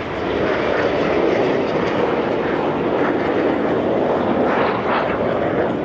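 Red Arrows BAE Hawk T1 jets flying overhead in display: a steady jet engine noise that swells slightly about half a second in and holds.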